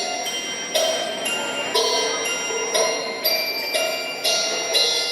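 Dance music led by bells, struck on a steady beat about twice a second, each stroke ringing on under the next.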